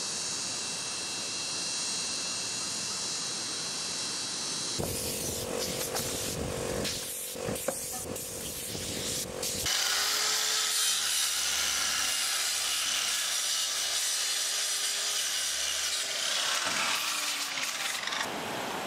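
Tools working wood, with noisy sawing-like sound that changes abruptly about five seconds in, again near ten seconds and again near sixteen seconds.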